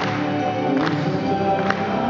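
Live band music: an acoustic guitar strummed over sustained chords, with a steady beat of sharp hits a little under a second apart.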